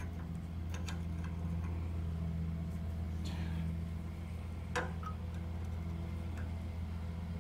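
Spanner and pliers working a small terminal nut on an alternator, giving a few light metallic clicks; the clearest comes about five seconds in. A steady low hum sits under them.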